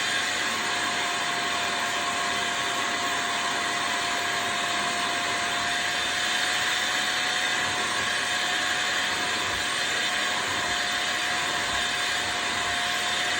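Aimon 04 washing vacuum cleaner running steadily, a constant rush of suction with a steady whine, as it washes a ketchup stain out of sofa upholstery.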